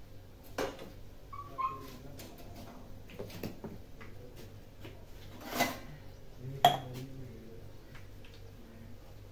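Dishes and utensils knocking and clinking a few separate times, the loudest a sharp clack about two-thirds of the way through, over a low steady hum. A brief high squeak comes about a second and a half in.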